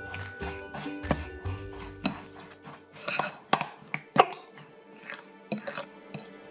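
Spoon stirring grapefruit pieces and sugar in a glass bowl, knocking and scraping against the glass in a run of clinks, the sharpest about four seconds in.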